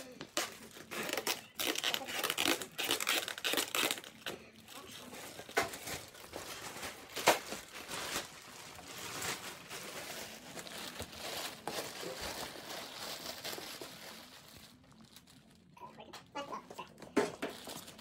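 Black plastic trash bag crinkling and rustling in irregular handfuls as it is folded and wrapped around a heavy part, with a short lull near the end.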